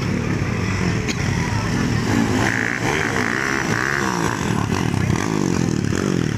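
Dirt bike engine revving hard as it accelerates and shifts around the track, its pitch climbing and dropping several times.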